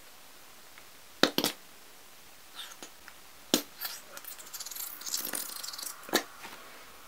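Plastic ketchup squeeze bottle being squeezed over omelet rice, with several sharp clicks and a hissing, spluttering stretch a little past halfway.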